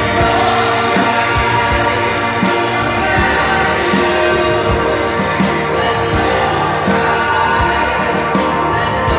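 Indie pop band music: an instrumental stretch of layered instruments over a drum beat, with no sung words.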